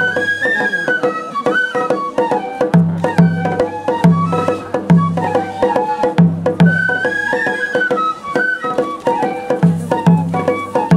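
Japanese festival ohayashi: several bamboo transverse flutes (shinobue) playing a short melody that repeats, over taiko drum strokes that fall in pairs.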